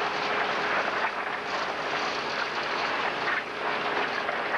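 Horizontal concrete mixer and its feed conveyor at a batch plant running: a steady rattling clatter with a faint even hum underneath.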